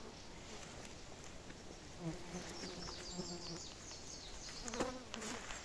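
A flying insect, a fly or bee, buzzing in short bursts close to the microphone about two seconds in. A single sharp click comes near the end.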